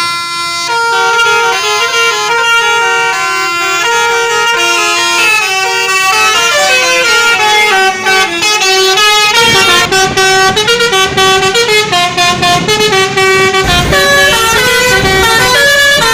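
Telolet Marro musical air horn on a Dewi Sri Cataleya bus playing a melody of held, stepping notes. About nine and a half seconds in, the notes change faster and a low rumble joins underneath.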